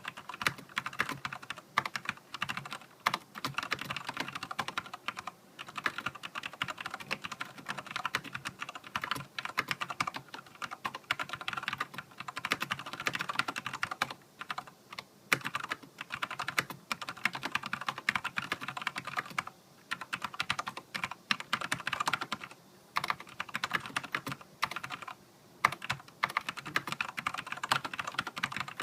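Typing on a Filco Majestouch mechanical keyboard with Cherry MX Black linear switches and heavy keycaps: fast runs of keystroke clacks with a few brief pauses.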